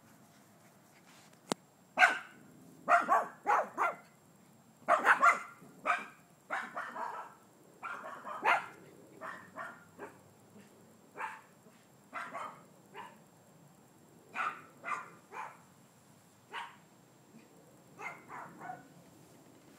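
Small dog barking in quick, irregular runs of short barks while playing chase, loudest and densest in the first third, then sparser single barks.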